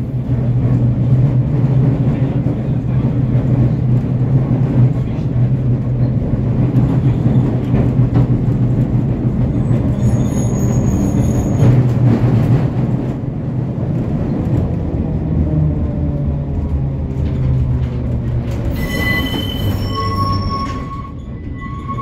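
Gotha T57 tram running along the track, heard from on board: a steady low drone of the running gear and rolling wheels, with a thin, high wheel squeal about halfway through and several squealing tones near the end as the wheels grind through a curve.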